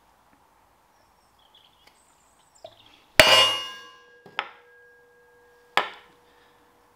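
Three sharp metallic clangs, the first the loudest, each leaving a ringing tone: the axle pivot bush being knocked down into the cast axle beam's bore, with the old bush used as a drift on top.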